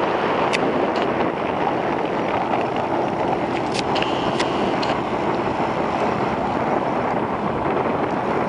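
Skeeter ZX190 bass boat's outboard motor running at speed as the boat planes past, with the rush of its hull through the chop. The sound is a steady rushing noise with a few sharp ticks scattered through it.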